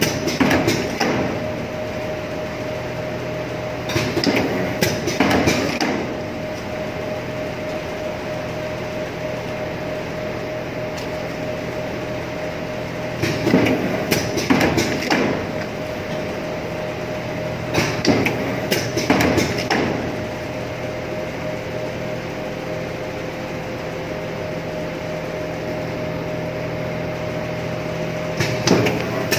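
Automatic hot-melt leather edge-folding machine running with a steady hum and a held whine. Five bursts of clacking knocks come at irregular intervals as it works through its folding strokes.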